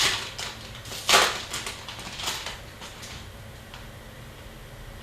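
Trading card pack wrapper crinkling as it is torn open, with a few sharp crackles, the loudest about a second in, then quieter rustling of cards being handled.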